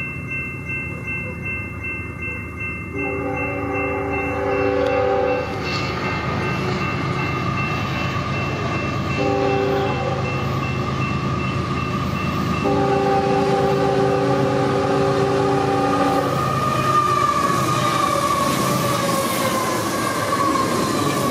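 Union Pacific freight locomotives sounding a multi-chime air horn for a grade crossing: a long blast, a short one, then a long one, over a crossing bell ringing. The diesels and wheels get louder as the lead units pass close near the end, with a falling whine.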